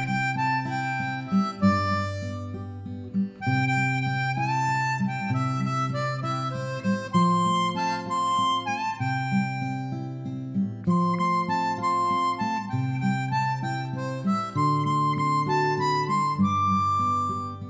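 Background music: a harmonica playing a slow melody of held, slightly bending notes over a steady plucked acoustic guitar accompaniment.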